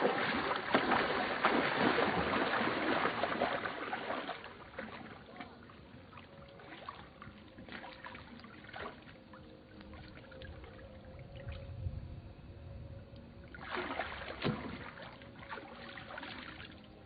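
Water splashing and sloshing, loudest for the first few seconds and again near the end, with scattered small clicks in the quieter stretch between.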